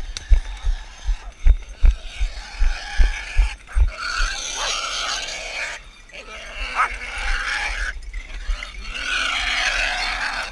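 Running footsteps thud on the woodland floor for the first few seconds. From about four seconds in, a wounded wild boar squeals and grunts while hunting dogs seize and hold it.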